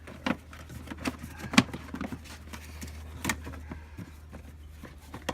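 Scattered clicks and knocks of plastic engine-bay cover parts being handled and fitted, over a steady low hum.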